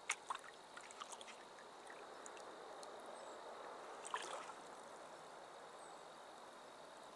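Wooden canoe paddle strokes in calm water: a soft swish and gurgle of the blade drawn through the water, swelling and easing with the stroke. A few light clicks of dripping or the paddle touching the hull in the first second and a half, and a small splash about four seconds in.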